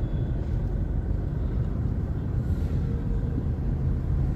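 Steady low rumble of engines and road traffic in a slow-moving jam, with a faint horn sounding briefly in the distance around the middle.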